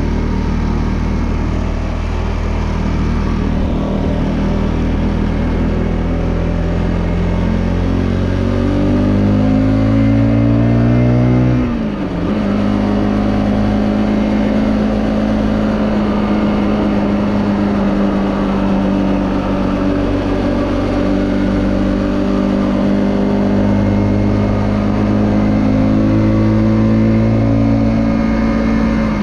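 Lexmoto LXS's tuned ZY125SR single-cylinder four-stroke engine under way. Its pitch climbs as the bike accelerates, drops sharply at a gear change about twelve seconds in, then holds a fairly steady cruise with small rises and falls.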